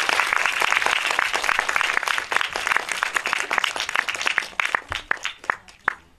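Audience applauding, many hands clapping together, thinning out to a few last scattered claps near the end.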